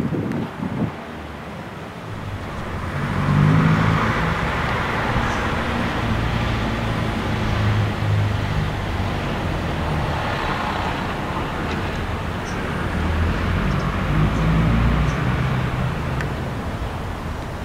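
Gakunan Railway electric railcar 7001 moving off slowly, a steady hum of motors and running gear that swells about three seconds in.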